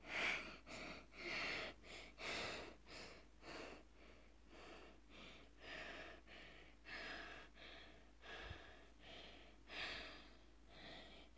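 Faint, quick breathing close to the microphone, soft unpitched breaths about one and a half a second.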